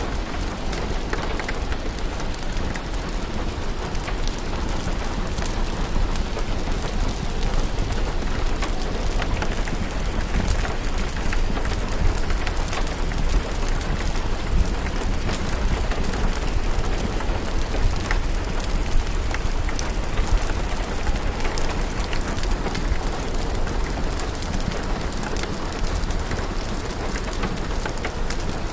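Steady rain with scattered sharp crackles from a wood fire, over a constant low rumble.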